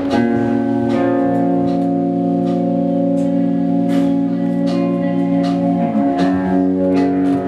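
Band music: sustained chords held on guitar or organ over light percussion strikes that keep a steady beat, with a chord change about six seconds in.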